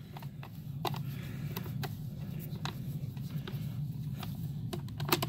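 Light clicks and scraping of a screwdriver turning screws out of the plastic base plate of a Bissell PowerForce Compact vacuum, with plastic being handled: a few scattered ticks over a low steady hum.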